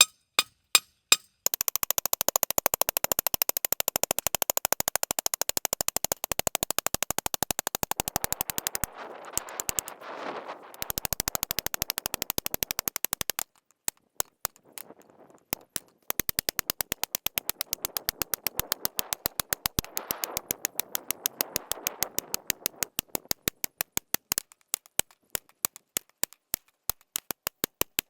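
A metal grounding rod being driven into hard ground: long runs of rapid, evenly spaced metal-on-metal impacts with short pauses between them, and slower single strikes near the start and end.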